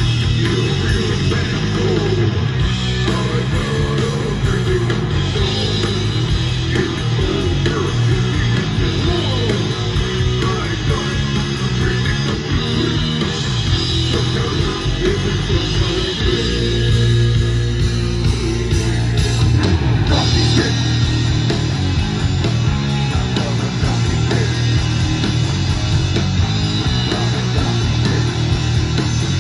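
Rough, unmixed playback of a heavy rock song with electric guitar from a Tascam MSR-16 reel-to-reel 16-track tape recorder, heard through a studio monitor speaker.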